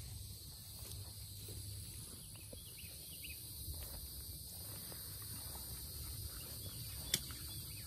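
A steady, high-pitched chorus of insects, with a low rumble beneath and a single sharp click about seven seconds in.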